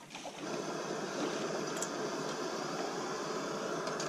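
Portable gas-canister camping stove burner, lit about half a second in and then burning steadily, heating water for coffee.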